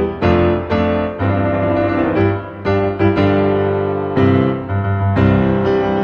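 Instrumental background music on piano: notes and chords struck about every half second, each ringing and fading.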